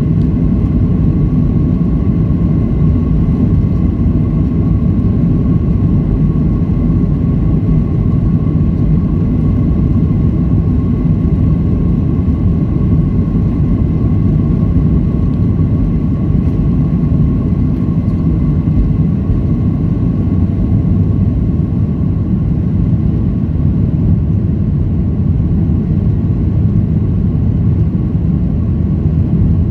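Boeing 737-800's CFM56-7B turbofan engines at takeoff thrust, heard from the cabin over the wing: a deep steady rumble with a thin steady whine above it, through the takeoff roll and lift-off into the climb.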